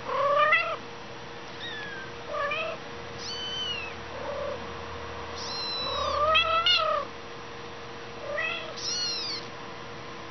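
Young Persian kittens mewing: about nine short, high-pitched mews, some overlapping, the loudest right at the start and around six seconds in.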